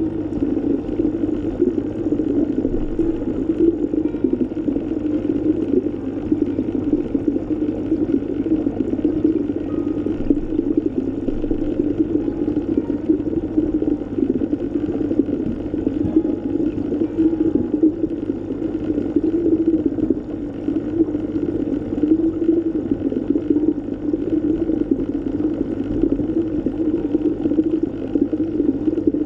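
Underwater ambience: a steady, muffled rush of water with a faint low hum.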